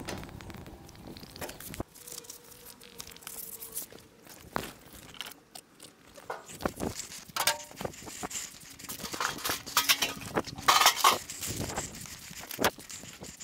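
Footsteps on grass and dry ground, with rustling and scattered crackles and knocks, louder in the last few seconds.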